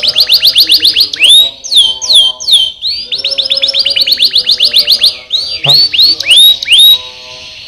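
Domestic canary singing: a fast trill of rapidly repeated high sweeping notes, then a few slower swooping whistles about a second and a half in, then another fast trill and more swoops near the end.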